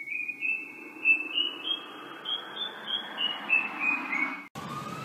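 A single high, whistle-like tone playing a slow melody note by note, stepping up in pitch for about two and a half seconds and then stepping back down. It cuts off suddenly near the end.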